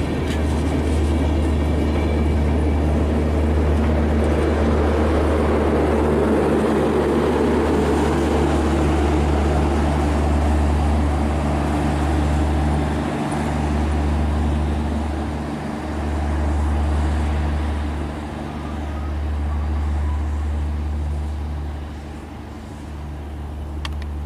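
Intercity passenger train rolling past at low speed, a steady low rumble and hum. The noise eases and swells a few times in the second half.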